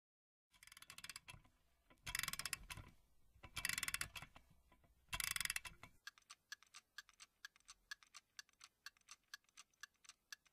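Clockwork sound effect: four short bursts of rapid ratcheting clicks, then quick, steady clock ticking at about four to five ticks a second.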